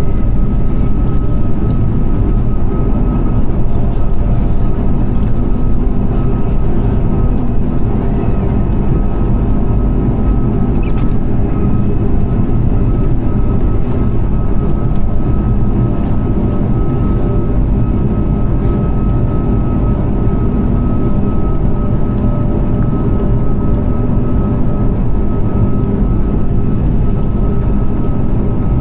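Airbus A340-600's Rolls-Royce Trent 500 engines and airflow heard from inside the cabin in flight: a steady low rumble with a thin steady whine over it.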